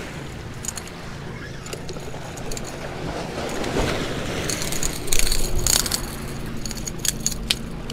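Waves washing against granite riprap with wind on the microphone, as a spinning reel is cranked; about five seconds in, louder scraping and sharp clicks on the rocks where a landed speckled trout lies.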